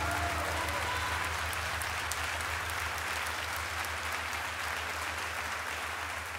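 Large audience applauding steadily at the end of a song, easing off slightly.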